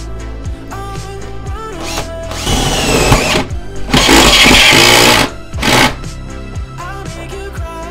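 Makita cordless drill running a 3/4-inch hole saw into a stainless steel sink deck, in three spells of harsh, high cutting noise: about two and a half seconds in, a longer and louder one about four seconds in, and a short one near six seconds. Background music plays throughout.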